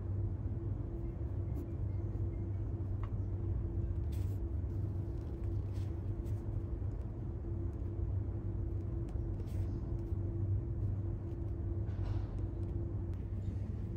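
Steady low background hum with two faint fixed tones in it, broken by a few faint short ticks.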